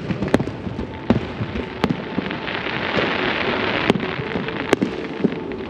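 Fireworks show: sharp bangs of shells bursting every second or so, with a swell of dense crackling in the middle.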